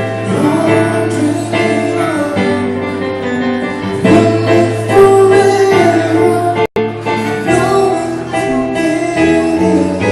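Live acoustic music with a singer over a steady low note. The sound cuts out for an instant about two-thirds of the way through.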